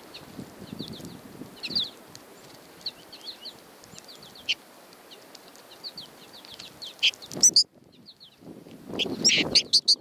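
American goldfinches chirping, short high calls repeating throughout. Twice, about seven and nine seconds in, louder close calls come with wing flutters and rustling at the seed-filled hand.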